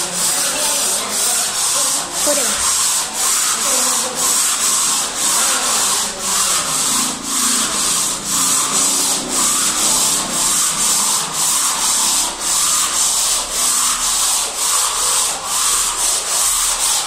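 Hand sanding of the bare slate bed of a snooker table: a pad rubbed back and forth over the stone in quick, even strokes, about two a second, giving a steady hiss.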